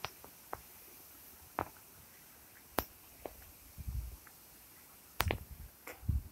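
Footsteps on paving stones mixed with handling noise: scattered sharp clicks and a few soft low thumps, over faint background hiss.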